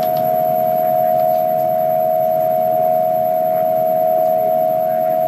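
Emergency Alert System attention signal: a steady two-tone alert, lowered in pitch, held without a break and unchanging in loudness.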